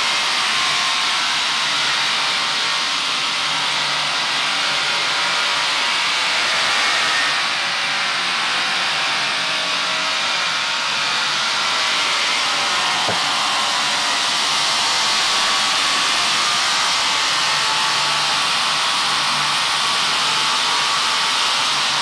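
Woodworking machine running steadily as boards feed through it: a loud, even whir with no breaks.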